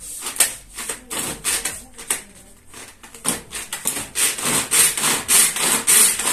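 Pull-cord vegetable chopper chopping onion halves: the cord is pulled over and over, a few strokes a second, the strokes louder from about four seconds in.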